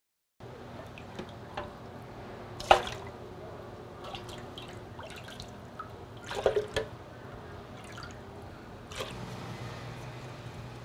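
Dark sauce ladled from a steel bowl into a plastic blender jar: liquid pouring and dripping, with a sharp clink about three seconds in and a short cluster of knocks around six and a half seconds, probably the ladle striking the bowl or jar. A steady low hum runs underneath.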